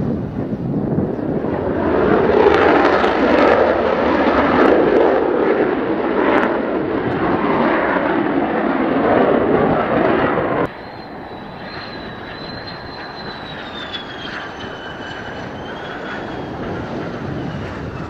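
Mitsubishi F-2 fighter's General Electric F110 turbofan jet engine at takeoff power, a loud steady roar as it lifts off from a touch-and-go and climbs away. About ten seconds in the sound cuts abruptly to a quieter jet roar from another F-2, with a high whistle that slowly falls in pitch.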